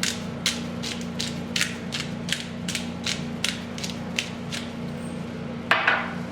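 Pepper grinder being twisted, its grinding mechanism clicking in a steady rhythm of about three clicks a second, then stopping; a short, louder rustling scrape follows near the end.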